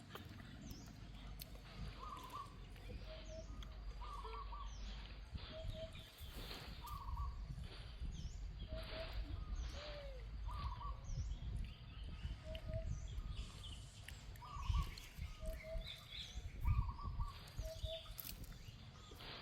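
A bird calling the same short two-note phrase over and over, about every second and a half, over a steady low rumble. A few low thumps come in the second half.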